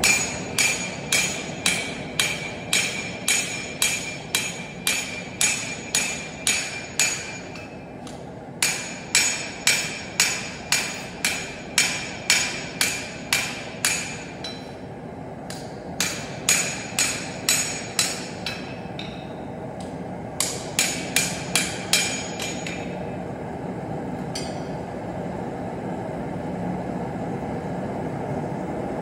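Hand-hammer blows on a knife blank over an anvil, about two a second, each with a bright metallic ring, drawing out the blade's bevel. The blows come in runs with short pauses and stop about three-quarters of the way through, leaving a steady low background noise.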